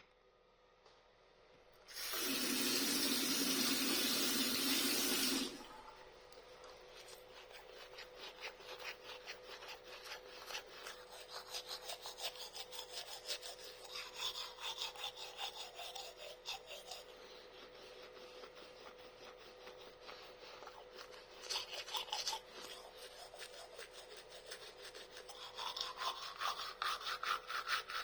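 A toothbrush scrubbing teeth in quick back-and-forth strokes, a fine rapid rasping that carries on for over twenty seconds and grows stronger near the end. It follows about three and a half seconds of loud, steady rushing noise near the start.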